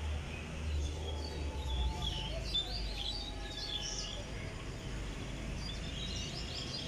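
Small birds chirping, with short high calls clustered in the middle and again near the end. Under them, the low rumble of a passing train fades out about two seconds in.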